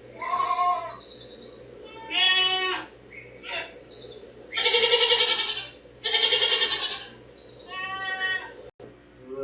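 Goat bleating, about six separate calls, some with a wavering, quavering pitch.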